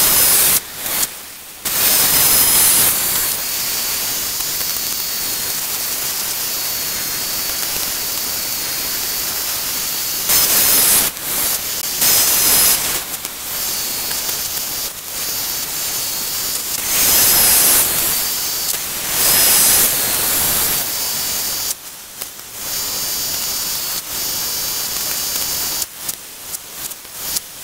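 Woodland Mills portable band sawmill running as its band blade cuts through a cedar log: a loud, steady hiss with a thin high whine, surging louder several times and dipping briefly near the end.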